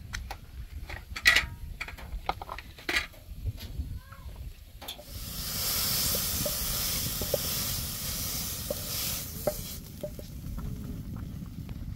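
Sharp clicks and taps of a knife on a chopping board, then, about five seconds in, a loud sizzling hiss that lasts about five seconds as oily fried herbs are scraped from a pan into a pot of hot broth, with a few wooden-spatula scrapes on the pan.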